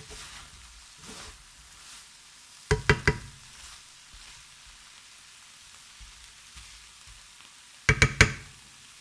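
Kumara and orange-juice sauce sizzling gently in a frying pan, with two short bursts of three or four sharp knocks of a utensil against the pan, about three seconds in and again near the end, as the food is stirred.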